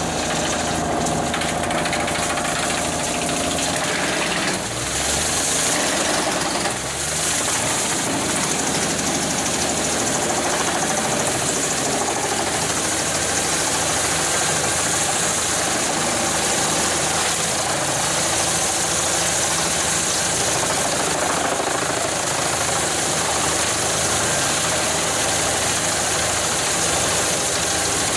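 Engine of heavy tree-cutting machinery running steadily, with a dense, constant rush of noise over it.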